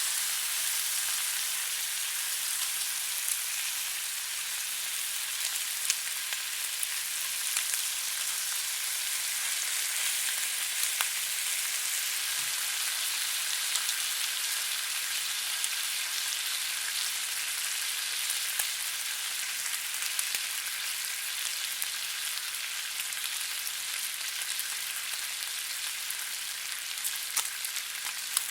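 Bacon sizzling in a frying pan: a steady high hiss of hot fat with frequent small pops and crackles of spitting grease.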